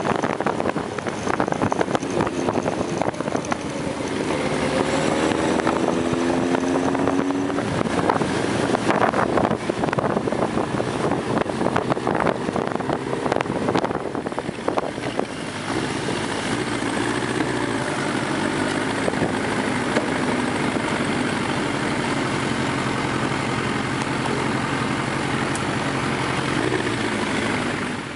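Motorcycle riding on the open road, heard from a camera mounted on the bike: the engine running with wind rushing over the microphone. The engine note rises a few times in the first several seconds as it accelerates, and from about halfway through the sound settles into a steadier drone.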